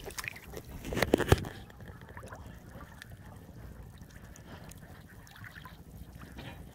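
Hand splashing into shallow, muddy paddy-field water while grabbing for a climbing perch: a few sharp splashes about a second in, then faint trickling and sloshing of the water.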